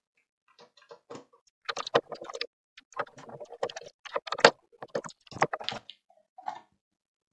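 Irregular clicks and knocks of the plastic case of a Commodore 1011 external floppy drive being taken apart by hand: small screws coming out and being set down on the bench mat, and the case being turned over.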